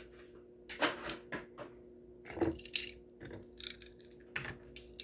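Light clicks and knocks of small die-cast toy cars being handled and set down, scattered and irregular. A faint steady hum runs underneath.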